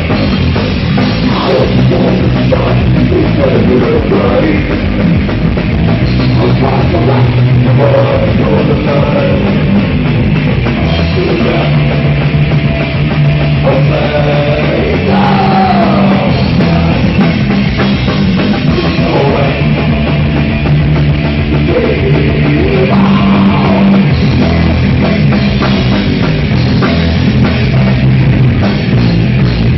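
Loud, continuous heavy rock played live by a trio of electric guitar, bass guitar and drum kit, with no vocals. The guitar slides in pitch a couple of times, around the middle and again later on.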